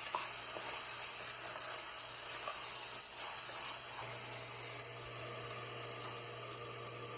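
Chopped tomatoes and onion masala sizzling in hot oil in a pressure cooker pan, a steady frying hiss with a few faint ticks. A low hum runs underneath and grows slightly stronger about four seconds in.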